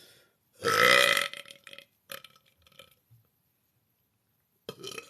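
A person's loud, drawn-out burp starting about half a second in and lasting about a second, followed by a few faint short sounds and a brief sound near the end.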